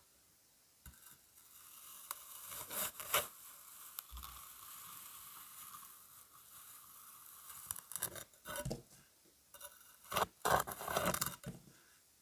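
Kinetic sand being worked close to the microphone: grainy crunching and scraping in several separate bursts, the loudest near the end.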